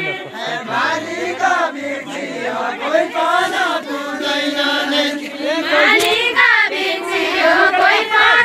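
A group of voices singing a deuda, the Far-western Nepali folk song sung together by a ring of dancers, in a chanted line that rises and falls.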